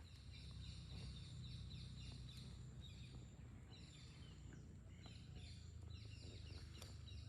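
Faint birds chirping, many short falling chirps one after another, over a low steady hum.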